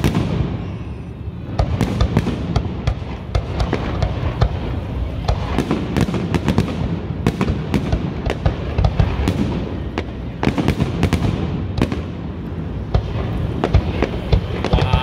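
Professional aerial fireworks display: shells bursting in quick succession, a dense run of sharp bangs and crackling with low booms underneath and no break.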